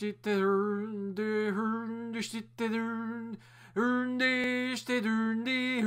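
A single voice singing or humming a short tune in held, steady notes with brief breaks between them, over a constant low hum.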